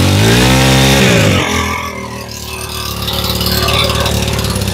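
Robin four-stroke brush cutter engine just pull-started, running fast at first, then dropping back about a second and a half in to a steady idle. The idle is still set a little high on this unadjusted machine.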